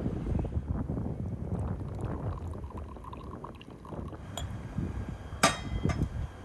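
Brewed tea poured from a glass teapot into a cut-glass tea glass on a saucer, a thin trickle, then a sharp ringing clink of glassware about five seconds in with a lighter clink just after. Low wind rumble on the microphone underneath.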